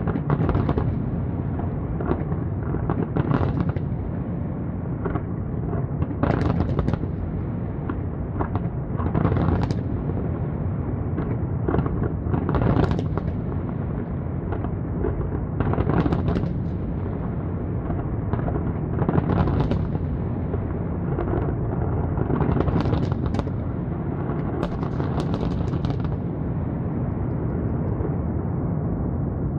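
Aerial fireworks display in full barrage: many shells bursting in quick, overlapping succession, making a continuous rumble of booms. Sharp crackling bursts stand out every second or two and thin out near the end.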